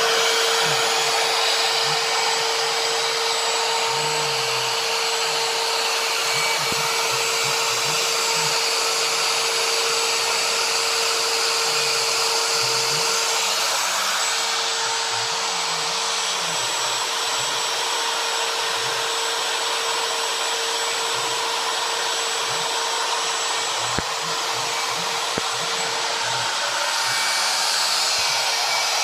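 Router on a homemade CNC machine running with a steady high whine and hiss as it cuts into wood, with the low, shifting hum of the stepper motors driving the axes underneath.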